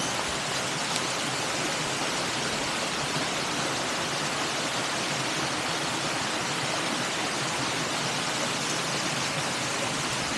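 Steady rushing of a mountain stream, an even hiss of flowing water that holds level throughout.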